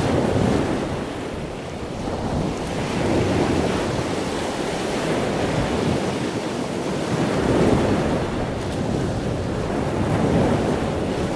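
Wind buffeting the camera microphone, with sea surf breaking on the beach behind it; the rushing noise swells and eases every few seconds.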